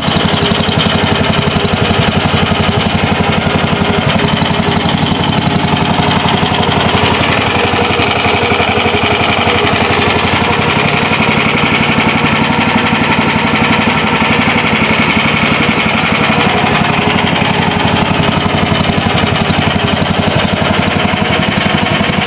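A homemade mini tractor's Brait BR445PE 17-horsepower single-cylinder petrol engine running at a steady speed, with a fast, even firing beat.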